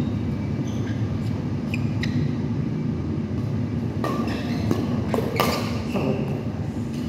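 Badminton rally: four sharp racket-on-shuttlecock hits about four to six seconds in, with short shoe squeaks on the court floor earlier, over a steady low rumble.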